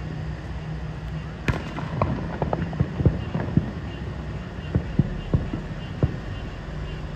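Fireworks show heard from a distance: aerial shells bursting in a string of sharp bangs, the loudest about a second and a half in, with a quick run of bangs soon after.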